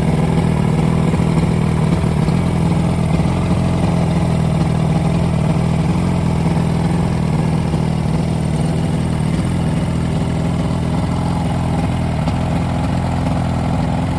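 Johnson/Evinrude outboard motor idling steadily with its cowling off, on a test run after its carburetors were cleaned and their fuel-mix screws reset; it runs smoothly.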